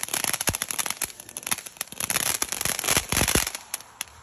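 Fireworks going off in a rapid run of sharp crackling pops, densest just past the middle, then thinning to a few scattered pops near the end.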